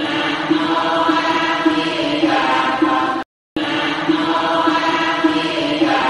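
Buddhist chanting by voices in unison: a short recorded phrase of about three and a half seconds repeated in a loop, with a brief silent break about three seconds in.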